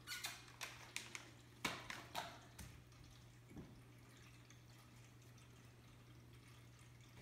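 A bag of cat treats crinkling in a handful of short rustles over the first three seconds. Under it runs the faint steady trickle and hum of a plastic pet drinking fountain.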